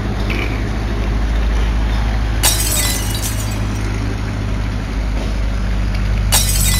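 A large engine idling steadily with a low, even hum, broken twice by short hissy rushes of noise, about two and a half seconds in and again near the end.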